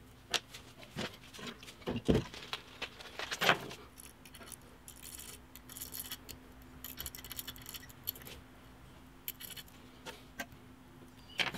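Small irregular metallic clicks and scrapes of a steel pick digging into the sight dot of a steel Glock night sight held in a vise, picking out the old paint and the glass lens over the tritium vial.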